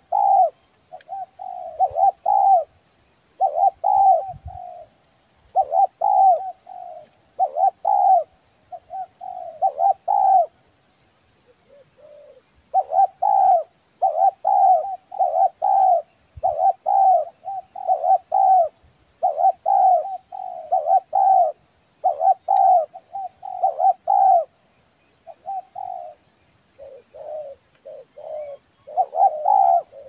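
Spotted dove cooing, one short coo phrase after another every second or two, with a brief pause about eleven seconds in.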